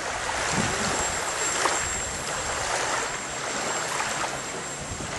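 Steady rushing noise of wind and small waves lapping at a lake shore, with a faint, thin, steady high whine above it.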